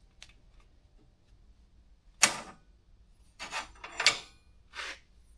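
Hands working the rest and fittings of a small diamond-wheel tool grinder: a few sharp clicks and clacks, one about two seconds in and a cluster from about three and a half to five seconds.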